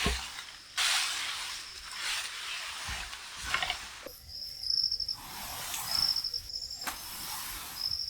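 Repeated bursts of rustling and handling noise, with an insect trilling in short high-pitched bursts behind it, more often in the second half.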